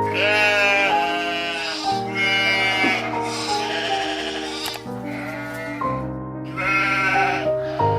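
Three long, wavering bleats from a farm animal, over background music of steady held notes.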